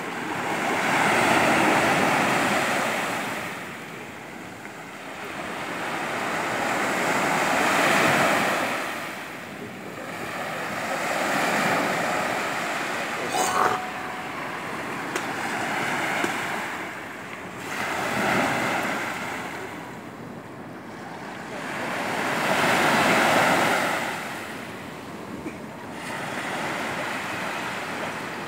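Surf breaking and washing up a sandy beach, swelling and fading every four to six seconds. A single brief sharp click about halfway through.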